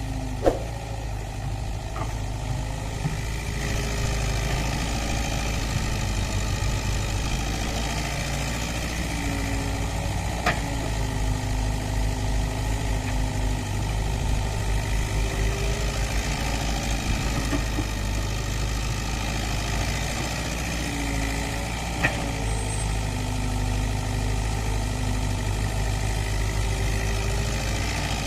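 Excavator diesel engines running steadily, with a drone that rises and falls as the machines work. Three sharp clanks stand out: one right at the start, one about a third of the way in and one near three quarters.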